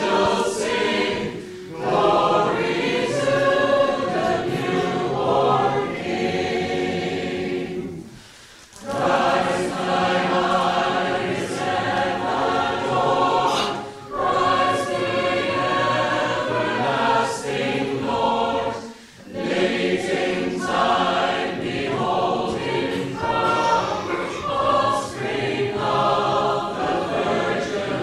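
Mixed choir of men's and women's voices singing together in long phrases, with brief breaks between phrases every few seconds.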